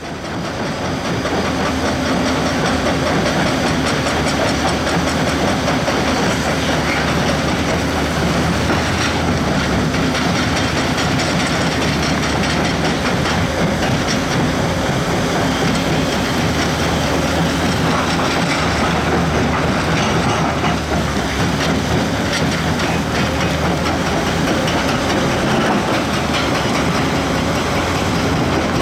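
Diesel engine of a heavy construction machine running steadily under load, with mechanical clatter of the machine working. The sound fades in at the start.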